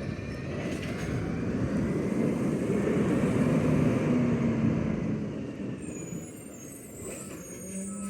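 New Way Sidewinder side-loader garbage truck driving past and away, its engine and road noise swelling to a peak about three to four seconds in, then fading.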